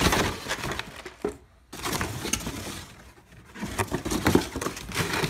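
Cardboard box rustling, crinkling and scraping as it is handled and a chainsaw is pulled out of it, in three bouts with short pauses between.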